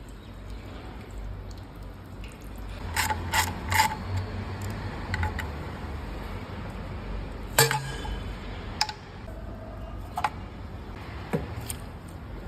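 Metal tools and engine parts clinking and knocking: a quick run of three clinks about three seconds in, then single sharp clinks every second or two, over a steady low background noise.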